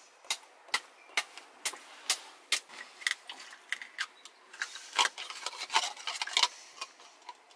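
Knife blade scraping and clicking against a black-lip abalone shell as the abalone is shucked and cleaned: sharp strokes about twice a second for the first three seconds, then irregular.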